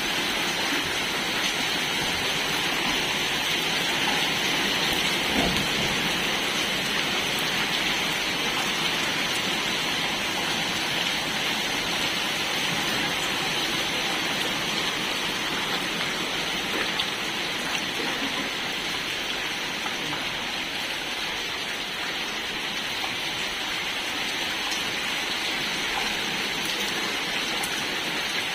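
Heavy rain falling steadily, an even hiss of rain on the ground, with a few brief louder taps.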